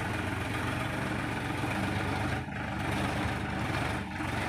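Diesel tractor engine running steadily at low revs.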